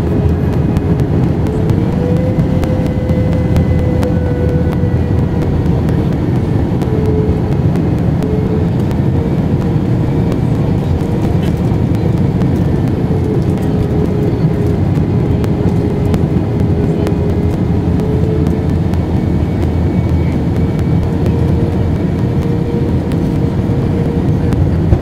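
Steady in-flight noise of a jet airliner heard from inside the cabin, a loud even rush with an engine hum that rises a little about two seconds in and then eases back.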